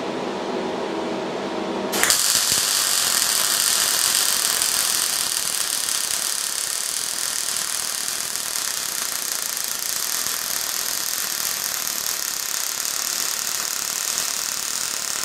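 MIG welder arc crackling steadily as a weld bead is laid on a steel reinforcing plate on an axle casing. The arc strikes suddenly about two seconds in and runs evenly until it stops near the end.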